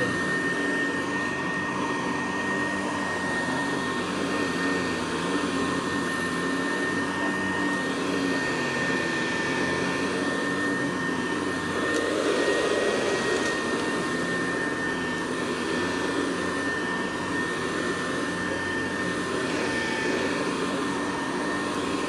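Vintage Hoover Deluxe Model 66 upright vacuum cleaner running steadily over carpet, a high motor whine over the rush of its fan, with its motor driving a CWP brushroll. It gets briefly louder about halfway through.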